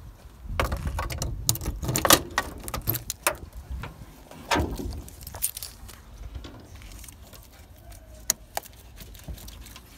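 Car keys jangling and clicking against a Mazda Miata's trunk lock as the trunk is unlocked and opened: a busy run of clicks and knocks over the first five seconds or so. A few single light clicks follow near the end as the battery's terminal clamp is handled.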